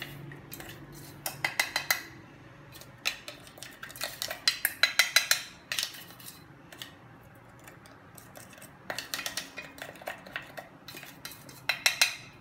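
A spoon clinking and scraping against a metal bowl in bursts of rapid taps as powdered roasted moong dal and almonds is emptied into a nonstick kadai, with some scraping in the pan.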